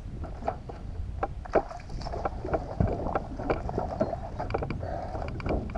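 Wind on the microphone and water against a small fishing boat's hull, with scattered sharp clicks and knocks from the anglers' gear and footing on the deck.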